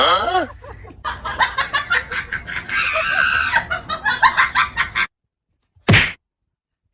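Chickens clucking: a falling call, then a quick run of short repeated clucks that stops suddenly, followed by one short burst near the end.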